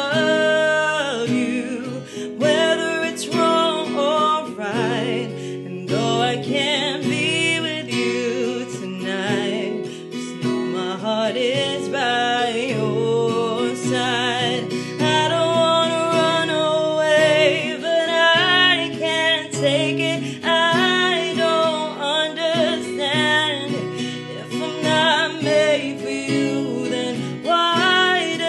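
Acoustic guitar playing while a woman sings over it, her voice sliding and wavering between held notes.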